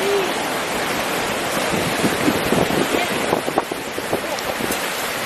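Strong wind buffeting the microphone over surf washing on the shore, a steady rushing noise, with a few short knocks or splashes in the middle.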